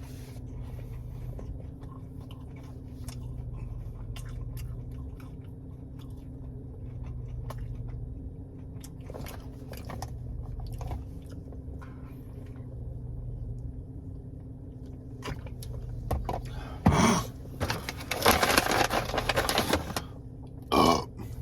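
A person chewing and biting into fried breaded mozzarella cheese bites, with scattered small crunches and mouth noises over a steady low hum. Louder bursts of noise come about three-quarters of the way in and again shortly after.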